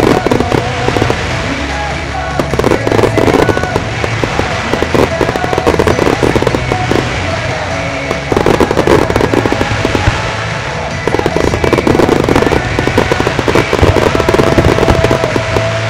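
A large starmine fireworks display: volleys of mines and shells firing and bursting in waves of rapid, dense crackling reports, with music playing underneath.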